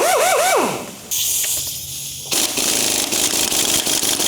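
Impact wrench running bolts in on a car's subframe. It revs in a few short pulses, then hisses, and from about two seconds in it hammers steadily as the bolts are driven home.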